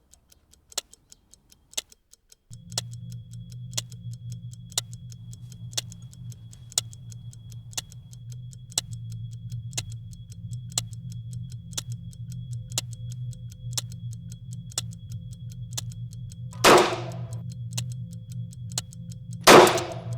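A clock ticking steadily, about one loud tick a second with softer ticks between. A low steady hum comes in a few seconds in, and two loud bangs sound near the end.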